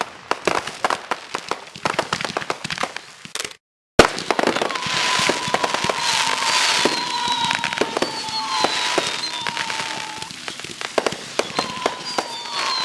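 Aerial fireworks going off: a rapid run of pops and crackles, a sharp bang about four seconds in after a brief dropout, then dense crackling with high whistling tones.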